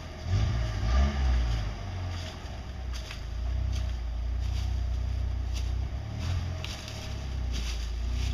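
Jeep Wrangler engine revving in bursts, then running steadily under load as the Jeep works against a rock ledge in a creek.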